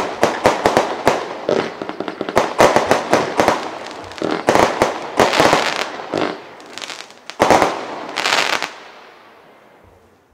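Lesli Vliegende Hollander fireworks going off: a rapid string of bangs and crackling, hissing bursts in the air. Two last big bursts come near the end, then the sound dies away.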